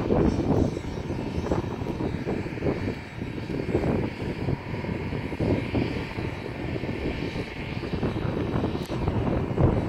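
Wind buffeting the microphone: a low, irregular rumble that swells and eases in gusts.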